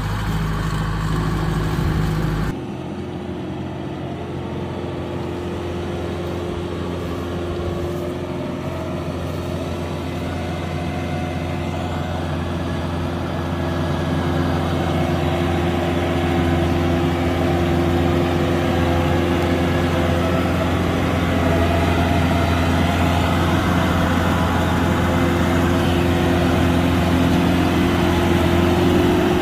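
Kubota DC-105X combine harvester's diesel engine running steadily. The sound changes abruptly about two and a half seconds in, then slowly grows a little louder.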